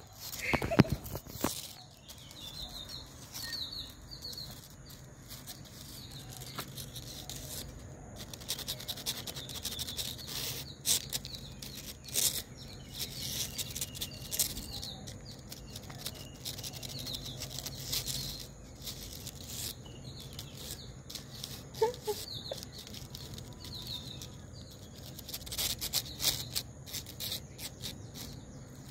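Scattered scratches and taps from kittens' claws on a painted wall and a dangled string, with a sharp knock about a second in as the loudest sound. Small birds chirp now and then over a steady high tone.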